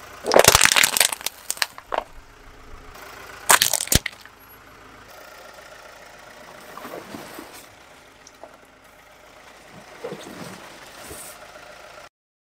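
A hard plastic tub cracking and splintering under a car tyre, with a cluster of loud sharp cracks near the start and another just before four seconds in. After that a quieter, steadier noise with a few softer crunches follows.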